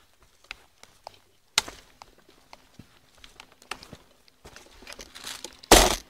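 Footsteps crunching over dry leaves and twigs, as a string of scattered light clicks, with a sharp crackle about a second and a half in. Near the end comes a loud, brief rush of noise, the loudest sound.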